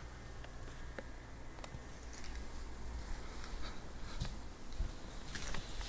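Fujitsu 15RLS3H mini-split heat pump running in heating mode, a steady low hum with a few faint clicks. A few short crackling or crunching noises come near the end.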